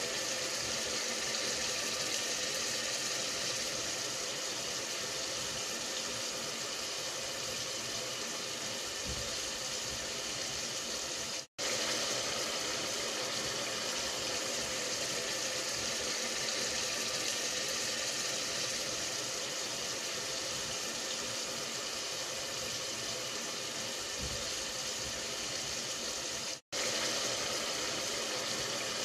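A steady, even rushing hiss with no clear source. It drops out for a split second twice, about a third of the way in and again near the end.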